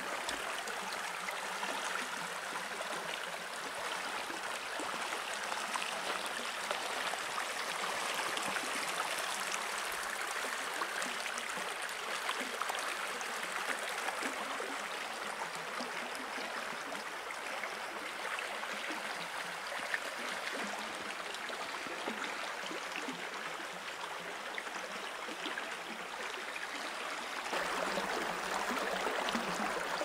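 Small river flowing and rippling in a steady rush of water, heard at first through a camera's built-in microphone. Near the end it switches to an Oktava MK012 mid-side stereo pair, and the same flow sounds a little louder and fuller.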